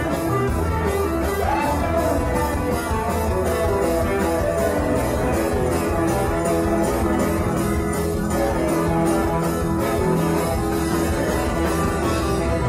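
Live rock band playing an instrumental stretch with no singing: electric guitar and electric bass over drums, with a steady cymbal beat ticking about three times a second, and keyboard.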